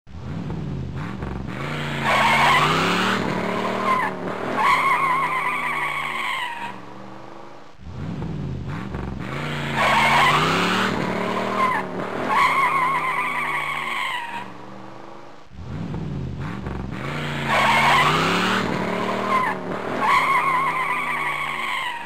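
Car tyres squealing in skids over a revving engine, as a sound effect that repeats three times, about every seven and a half seconds. In each repeat the engine note rises and falls, then the tyres give two loud wavering screeches.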